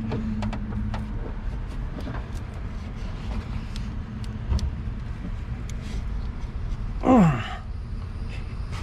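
A man's strained groan, falling in pitch, about seven seconds in, as he forces the serpentine-belt tensioner by hand. Before it come scattered light clicks and knocks from the work on the belt, over a steady low rumble.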